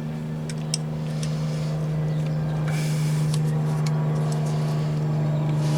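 A motor vehicle engine running with a steady, even hum that slowly grows louder. It is background engine noise, not the parts being worked on.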